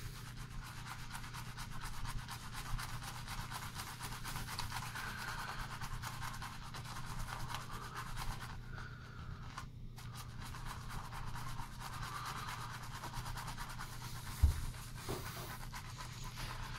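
Shaving brush swirled over a wet face, building a lather of Arko shaving soap: a steady, fast scratchy brushing that breaks off briefly about halfway, with one soft thump a couple of seconds before the end.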